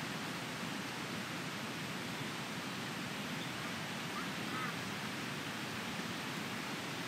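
Steady, even rushing of flowing water, with a brief faint call about four seconds in.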